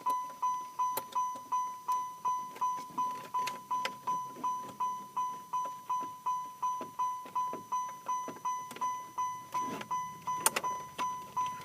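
A car's warning chime dinging steadily, about three clear single-tone dings a second, each fading quickly. A sharp click comes about ten and a half seconds in.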